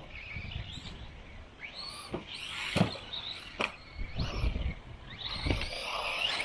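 Small RC buggy's brushless motor whining, its pitch sweeping up and down as the car speeds up and slows again and again, with a few sharp knocks.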